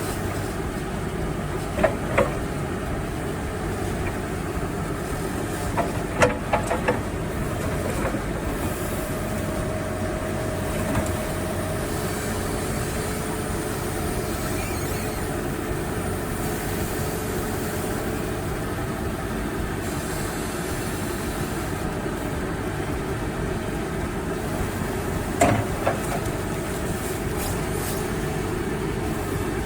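Case 580 Super N backhoe's diesel engine running steadily, with a few short sharp knocks about two seconds in, around six to seven seconds in, and again near the end.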